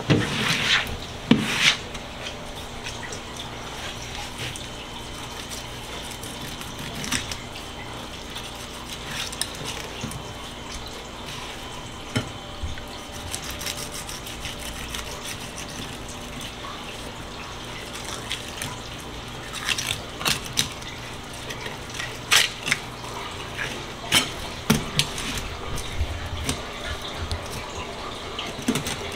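Water running and splashing at a kitchen sink, under scattered sharp knocks and scrapes of a knife on a plastic cutting board while a red sea bream is filleted. The knocks come more often in the second half.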